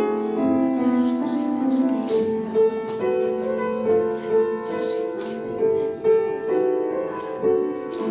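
Piano music playing a slow melody of held notes.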